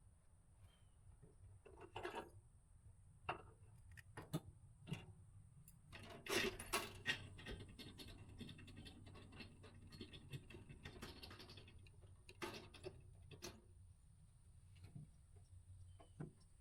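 Scattered light clicks and knocks of metal hardware being handled, with a busier stretch of scraping and rattling in the middle.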